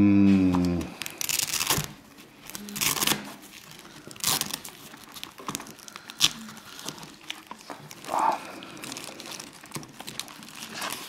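A short hum of voice at the start, then hands handling a nylon knife sheath and the plastic-wrapped bowie knife inside it: rustling of plastic and fabric with scattered clicks as the sheath is opened and the knife drawn out.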